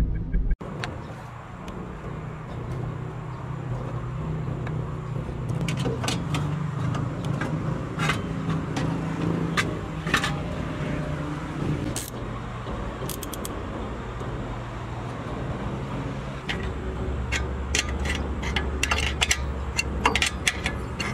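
Scattered metallic clinks and taps of a wrench, bolts and metal intake parts as an aftermarket air intake and heat shield are fitted in an engine bay. The clinks come a few at a time at first and much more often near the end, over a steady low hum.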